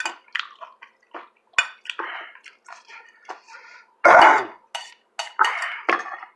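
Cutlery clicking and scraping against a dish during eating, a run of short clinks with brief noisy scrapes and a louder one about four seconds in.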